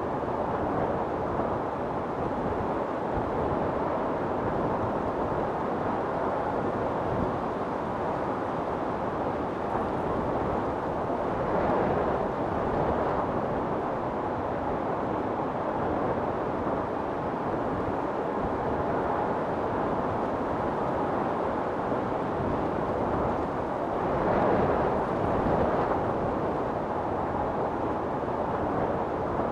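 Wind storm blowing in a steady rush, with gusts swelling up about twelve seconds in and again around twenty-five seconds.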